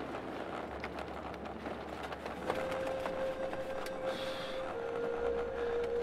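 Steady wind noise on the microphone with scattered faint clicks. A held tone comes in about halfway through and steps down slightly in pitch about two seconds later.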